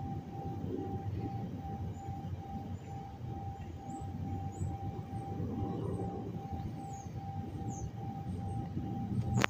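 Cell-tower base station beeping: a steady mid-pitched electronic tone pulsing rapidly and evenly, which is its normal beeping, over a low rumble. A sharp click comes just before the end.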